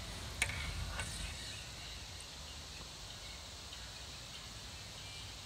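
Wood fire burning in a metal fire pit, with two sharp pops about half a second and a second in. Faint insects chirp steadily behind it.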